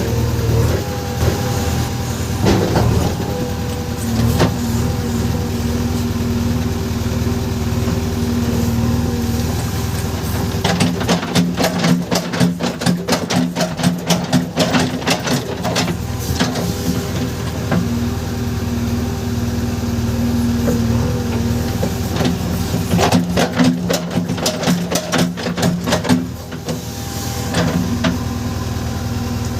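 Diesel engine of a JCB 3DX backhoe loader running steadily while working, with two stretches of rapid clattering knocks, one in the middle and one near the end.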